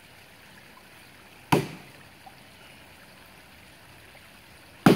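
Two axe strikes into the solid wood of a standing dead tree trunk, about three seconds apart, each a sharp chop that dies away quickly. A creek runs steadily underneath.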